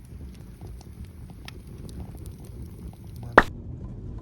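Pine-cone campfire burning, crackling with scattered small pops over a low rumble, then a single loud sharp pop about three and a half seconds in.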